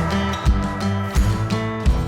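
Background music with a steady beat, a low hit about every 0.7 seconds under sustained pitched notes.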